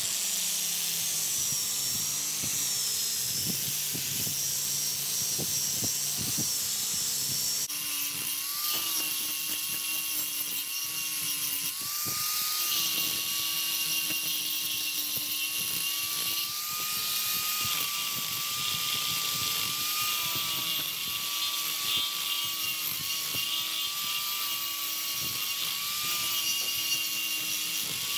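Electric angle grinders with sanding discs running against the end grain of a log slab: a steady motor whine that wavers in pitch as the disc is pressed into the wood and eased off. About eight seconds in the sound changes abruptly to a different, higher whine.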